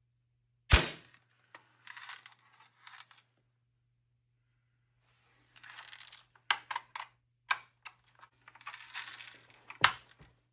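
Compact BB gun fired twice, a sharp crack shortly after the start and another near the end. Between the shots come rustling and a run of small clicks as the gun is handled and cocked.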